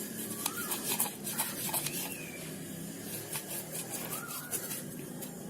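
Toothbrush scrubbing the gaps of a mixer grinder jar's lid, quick bristle strokes about three or four a second that thin out after about two seconds. A few short bird chirps are heard.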